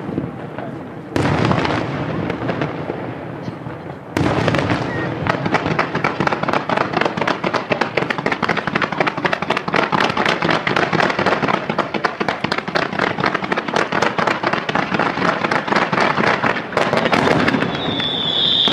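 Aerial fireworks display: two sharp shell bursts, about a second in and about four seconds in, then a dense, rapid crackling of many small bursts that carries on until near the end.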